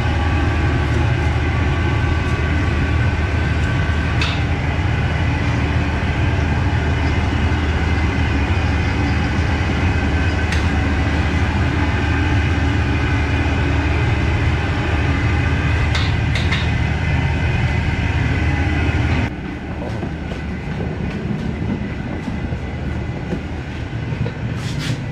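A loud, steady machine hum: a deep drone with several steady higher tones above it, cutting off suddenly about 19 seconds in and leaving a quieter background with a few clicks.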